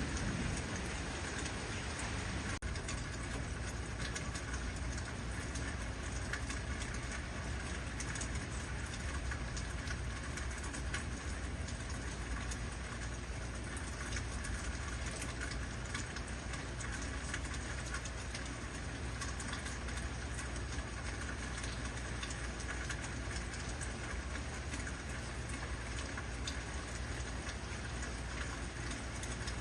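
Heavy rain falling steadily, with a dense patter of drops hitting surfaces over a constant low rumble.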